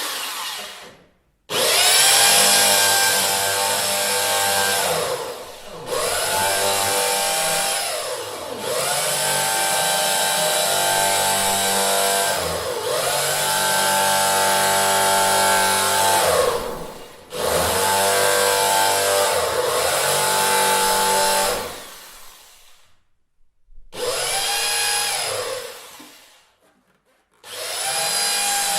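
Electric drill run in a series of bursts, about seven, each spinning up to a steady high motor whine and winding down, with short pauses between runs.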